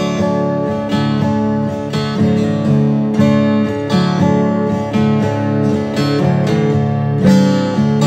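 Background music: acoustic guitar strumming chords in a steady rhythm.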